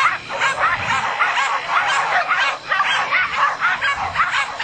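Dog barking excitedly in a rapid, unbroken string of high barks, several a second.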